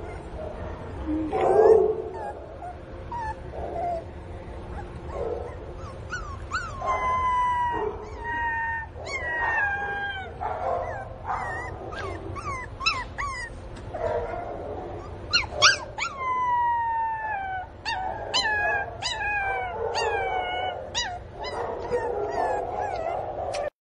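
Pinscher puppy crying loudly in separation distress: repeated high-pitched whines and yelps that slide down in pitch. The cries come thick and fast from about six seconds in, with the sharpest yelps a little past the middle.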